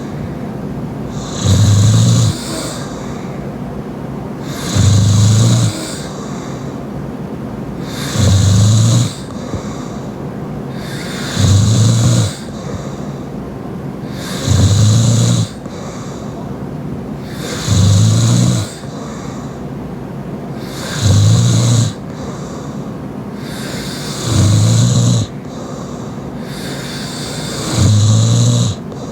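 A sleeping young woman snoring loudly through her open mouth: nine deep snores, each about a second long, coming evenly about every three seconds, with a steady hiss between them.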